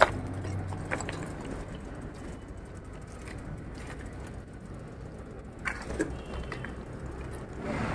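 A loaded touring bicycle being wheeled over rough ground, giving a few light clicks and knocks. Under it runs a low, steady rumble of distant highway traffic.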